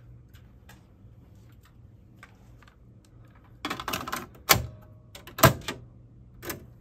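A cassette tape being loaded into a Marantz cassette deck: a plastic clatter as the cassette goes in about three and a half seconds in, then a few sharp mechanical clunks from the deck, the loudest two about a second apart, and a softer one near the end.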